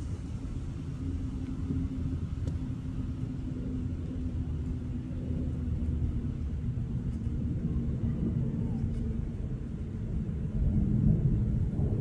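Distant twin-engine jet airliner cruising overhead at altitude, its engines heard as a steady low rumble that swells a little near the end.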